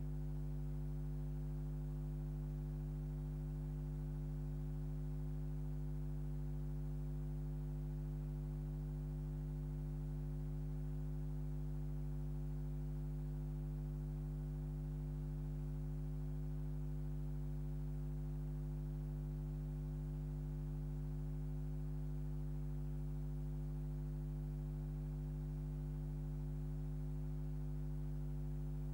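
Steady low electrical hum with several overtones, unchanging in pitch and level throughout.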